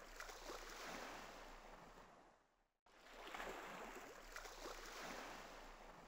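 Faint sea waves washing, in two swells that each rise and fade, with a brief cut to silence between them.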